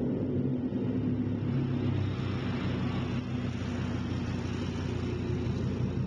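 Fiat Marea's engine running with a strong, steady low exhaust rumble.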